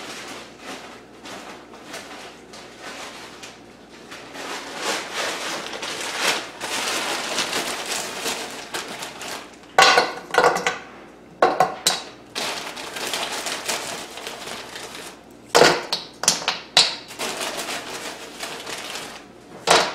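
Frozen chicken strips sizzling and crackling in hot oil in a wok as they are laid in a few at a time. Several louder bursts of crackle and rustling in the second half come from more pieces going in and the plastic freezer bag being handled.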